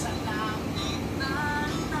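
Background music: a high, stepping melody line over a busy, steady low accompaniment.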